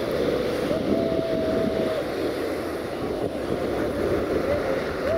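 Train running with a steady low rumble. A single high steady tone comes in for about a second, about a second in, and again at the very end.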